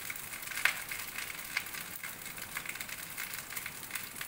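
Rice frying in a wok on a high flame: a steady sizzle with constant crackling, and now and then the sharper tap or scrape of a wooden spatula against the pan.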